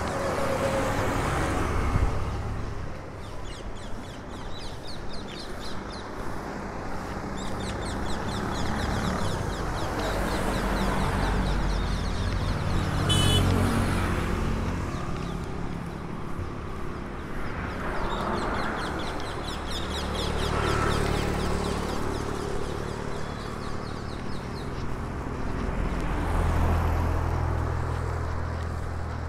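Street traffic: vehicles passing one after another, each swelling and fading, over a steady low engine rumble, with birds chirping now and then.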